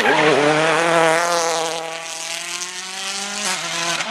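Ford Fiesta rally car's engine pulling hard out of a hairpin and fading as the car drives away uphill. There is a brief dip in pitch just after the start, then a long steady pull, then a short break at about three and a half seconds as it changes gear.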